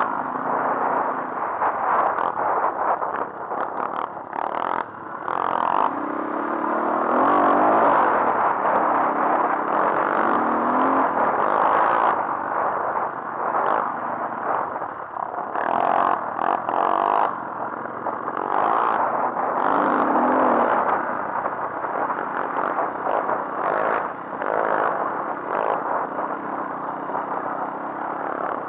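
Dirt bike engine running under way on a rough track, its pitch rising and falling several times as the throttle is worked, heard from a camera mounted on the bike with steady wind rush and frequent rattles from the chassis.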